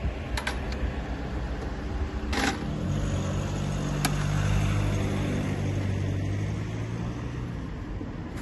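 Sharp metal clicks and a short clatter from a manual wheelchair being handled and taken apart. A low vehicle engine hum swells from about three seconds in and fades away near the end.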